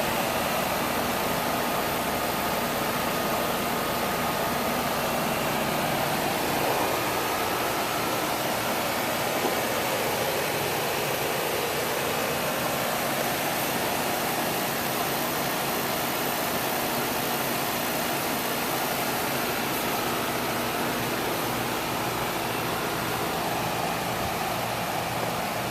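Newly installed Rheem Classic 4-ton R-410A air-conditioning condenser running steadily: an even rush of air from the condenser fan over a low, steady hum.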